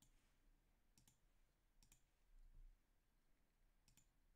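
Faint computer mouse clicks: four clicks, most of them a quick double tick of button press and release, spread about a second apart. A low rumble comes in briefly about two and a half seconds in.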